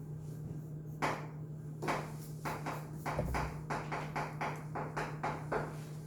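Quick short scratching strokes of writing, two or three a second, starting about a second in, over a steady low electrical hum.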